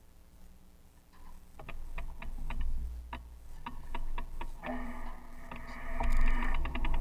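Bicycle rear freewheel ticking as the bike is wheeled along without pedalling: evenly spaced clicks about three to four a second, coming faster near the end. A steady hum joins about two-thirds of the way in.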